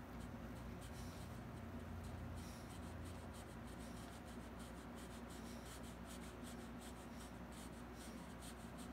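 Faint scratching of a paintbrush stroked across canvas in many short, quick strokes, thickest from about two and a half seconds in, over a steady low hum.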